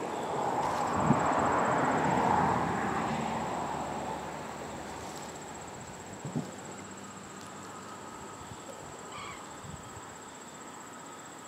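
A broad rushing noise swells over the first two seconds and fades away by about five seconds in, over a steady, faint, high-pitched whine and a couple of soft knocks.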